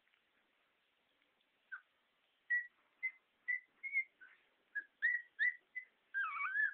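Puppy squealing as two puppies fight: about a dozen short, high squeaks in quick succession, then one longer wavering whine near the end.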